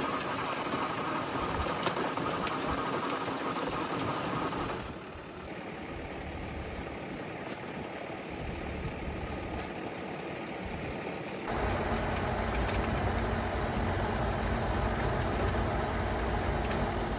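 A motor engine running steadily, the sound changing abruptly about five seconds in and again past eleven seconds, with a deeper, louder hum in the last stretch.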